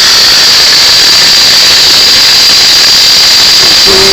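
1998 Saab 900 2.0-litre turbo engine running with a steady high-pitched whine, which the owner traces to a failing belt idler pulley rather than the turbo.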